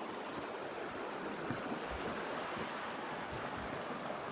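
Shallow creek running over rock ledges: a steady rushing of water.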